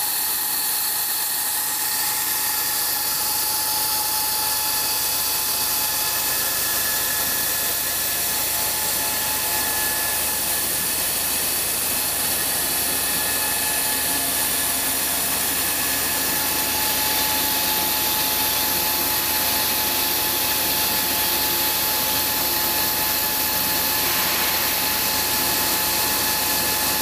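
Double-column milling machine face-milling metal with a large face mill: a steady cutting noise, mostly hiss with a constant whine.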